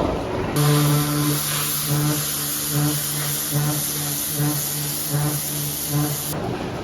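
Pressure washer spraying: a steady hiss that starts abruptly about half a second in and cuts off near the end, over a low hum that pulses on and off.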